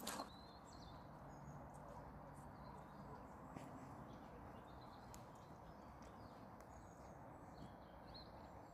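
Near silence: faint steady background noise, with a few faint, short, high chirps scattered through it.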